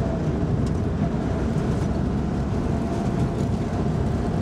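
A vehicle driving on a dirt road, heard from inside the cab: a steady low rumble of engine and tyres on gravel, with a faint steady whine.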